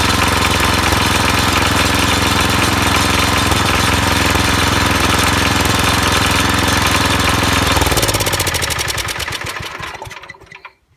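The Tecumseh HH120 single-cylinder engine of a 1968 Sears Suburban 12 garden tractor running steadily, then shutting off about eight seconds in, its firing pulses slowing and fading as it coasts to a stop.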